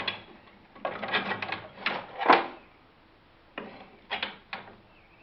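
Metal clinking and clanking from hand work on a rotary mower's PTO shaft and its hardware: a string of sharp knocks and rattles, the loudest about two and a half seconds in.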